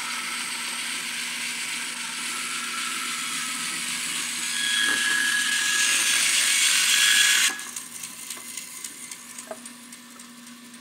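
Wood-cutting bandsaw ripping a thick block of hard, dense, long-dried pear wood along the fence. The cutting noise grows louder about four seconds in and stops suddenly about seven and a half seconds in as the cut finishes, leaving the saw running with a steady hum.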